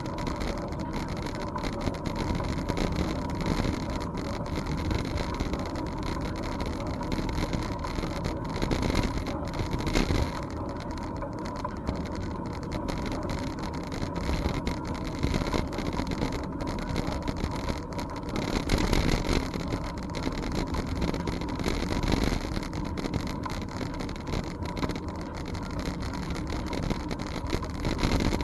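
Bicycle ride along a trail, heard from a camera riding on the bike: steady rumbling noise with frequent small knocks and rattles from the bike jolting over the surface.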